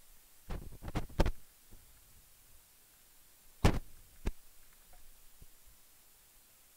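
Sharp knocks against a blackboard: a quick run of about four near the start, then a louder one about three and a half seconds in, followed by a smaller one a moment later.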